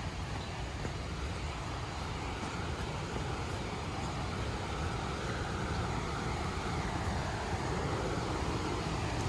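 Steady rushing of a creek running high after rain, growing slightly louder as the trail nears the water, with a low rumble underneath.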